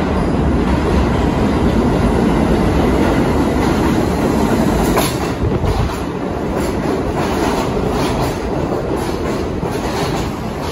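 R32 subway train, Budd-built stainless steel cars, arriving along the platform with a loud, steady rumble of wheels and running gear. From about five seconds in, a run of clicks joins it as the wheels cross rail joints.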